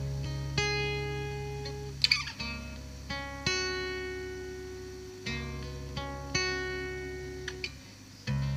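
Background music: plucked acoustic guitar notes ringing over sustained bass notes that change every two to three seconds, with a brief strum about two seconds in.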